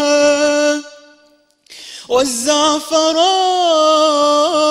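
A young man singing an Arabic religious poem unaccompanied, in a drawn-out, ornamented style. A held note fades out about a second in, and after a short pause he comes back in with long, wavering notes.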